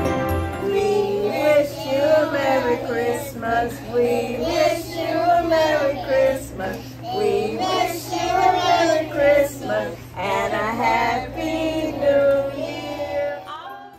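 A group of young children singing together, with women's voices joining in, fading out near the end.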